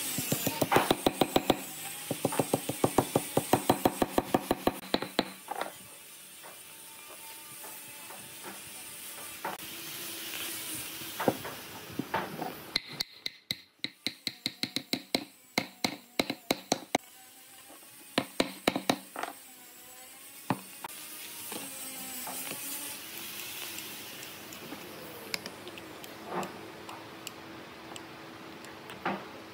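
A hammer knocks wooden dowels into drilled holes in a timber block. The sharp strikes come in quick runs of about four to five a second: a long run at the start, then shorter bursts before and after the middle.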